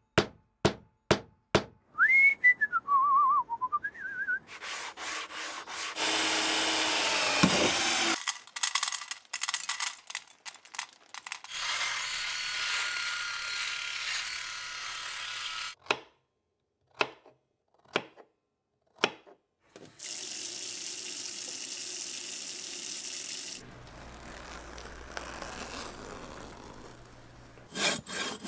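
A series of separate everyday sounds. First come quick regular hammer blows driving a nail into wood, then a short whistle that rises and falls. Long stretches of hissing noise with scattered clicks follow, and near the end a hand saw starts cutting through a log in quick regular strokes.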